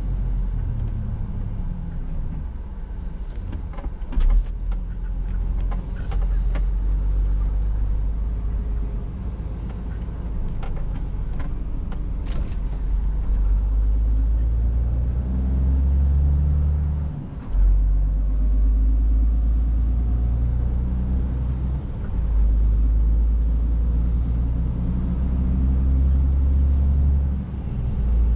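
Scania S460 truck's diesel engine heard from inside the cab, a low drone under load as the truck gathers speed. The engine note climbs in steps, with three short dips in the middle and later part as the gearbox changes up. A sharp knock comes about four seconds in.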